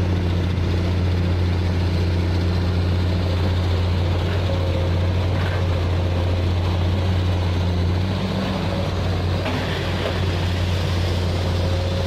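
Hino concrete mixer truck's diesel engine running steadily with a low, even note that shifts slightly about eight seconds in.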